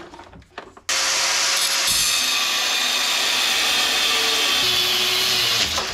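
A power tool cutting into metal. It starts abruptly about a second in and then runs loudly and steadily.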